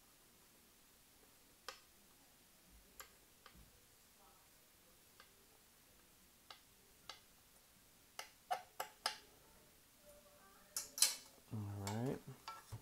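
Scattered small hard clicks and taps of a hand screwdriver and metal parts being handled as screws are driven into an RC truck's aluminum chassis brace. The clicks are sparse at first and come in a quicker cluster about eight seconds in.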